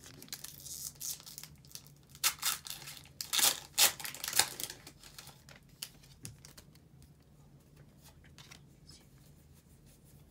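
A Pokémon Vivid Voltage booster pack's foil wrapper being torn open and crinkled, with several sharp rips about two to four seconds in, then only faint rustling.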